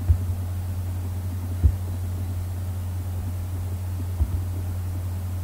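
Steady low electrical hum on the recording, with a few brief soft thumps, about a second and a half apart at first and then two close together near four seconds in.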